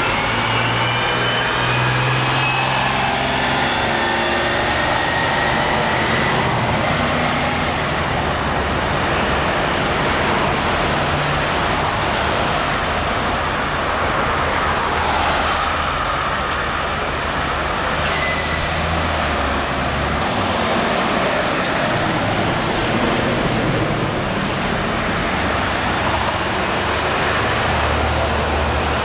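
Steady road-traffic noise with a motor vehicle's engine running, its low note stepping up and down in pitch several times. A faint falling whine can be heard in the first several seconds.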